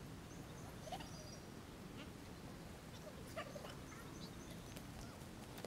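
Faint outdoor ambience: a steady low rumble of wind, a few short, high bird chirps about half a second to a second in, and scattered faint clicks and rustles.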